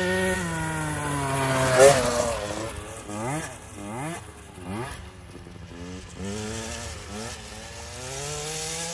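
Mini dirt bike engine revving up and down again and again as it rides over bumps. It is loudest about two seconds in, then drops in pitch.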